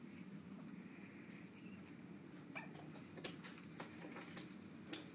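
Newborn baby hiccuping: faint, short, squeaky hics coming every half second or so in the second half, the sharpest near the end.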